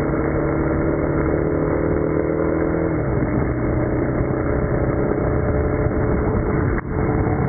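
Motorcycle engine running steadily over rushing water; its note drops lower about three seconds in.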